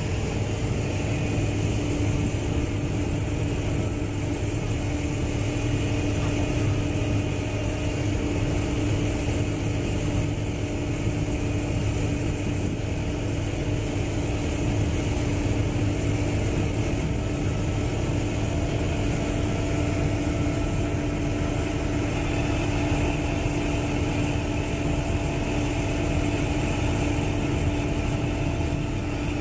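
Heavy diesel engines of earthmoving machines, a crawler bulldozer and a loader, running steadily at idle with an even, unchanging hum.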